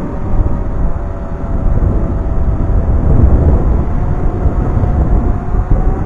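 Wind buffeting the microphone in a loud, uneven low rumble that grows stronger about two seconds in, with a faint steady hum of a quadcopter drone's propellers under it.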